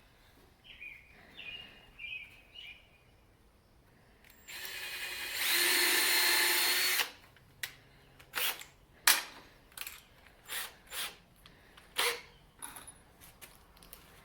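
Power drill running for about two and a half seconds, boring a pilot hole for a screw in a wooden frame; it gets louder about a second into the run. A string of sharp clicks and knocks follows.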